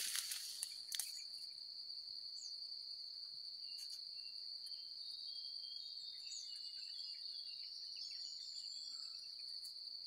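Continuous high-pitched insect trill, steady in pitch and level, with faint scattered chirps in the middle and a few brief rustles of grass in the first second.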